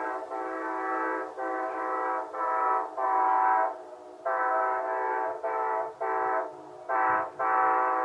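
A Nathan K5LA five-chime air horn on a GE P42 locomotive is played as a horn show. It sounds a quick run of about nine short and longer chord blasts with brief breaks between them.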